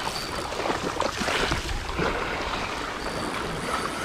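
Small waves washing up and back over a sandy beach, with wind on the microphone.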